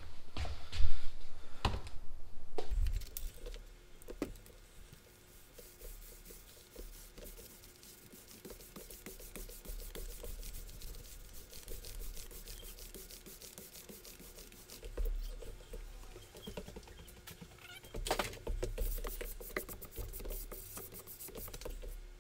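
Paint roller working wet water-based contact adhesive over a laminate sheet: a soft, sticky crackle as it rolls, louder near the end. A few knocks in the first few seconds.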